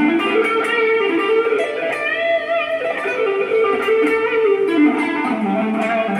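Electric guitar on its neck pickup with a rock lead tone, playing a melodic lead line of held notes with string bends and vibrato.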